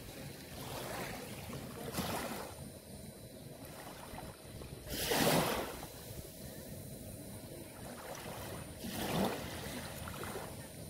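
Small waves washing up onto a sandy shore in four soft surges, the loudest about five seconds in.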